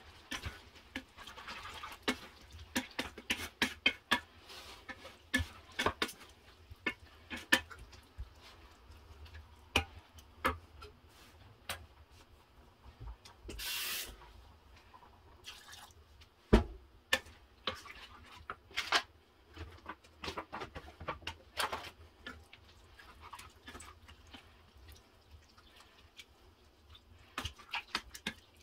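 Wooden spoon stirring and scraping in a stainless steel saucepan of vegetable sauce, giving irregular clicks and soft knocks. A short hiss comes about halfway through, then one loud thump a few seconds later.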